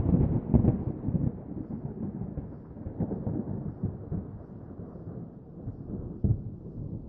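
A thunder peal rumbling, with crackling cracks in the first second, then a long low rumble that slowly fades, broken by another sharp crack about six seconds in.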